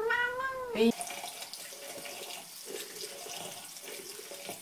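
A cat's single meow, rising then falling, in the first second; then water from a bathroom tap running steadily into a sink.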